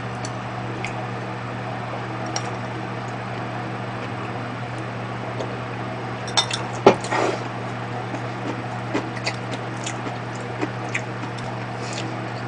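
Eating sounds at a table: a spoon and chopsticks clinking against a ceramic bowl and dishes, with chewing. The clicks are scattered, with a louder cluster of clinks about six to seven seconds in, over a steady low hum.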